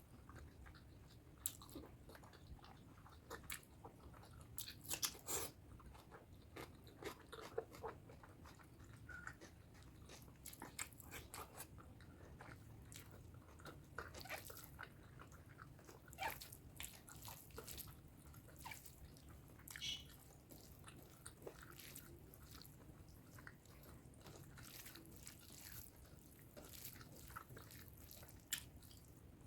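Close-miked mouth sounds of someone eating pork curry and rice: soft, irregular chewing clicks and smacks, a few louder ones now and then.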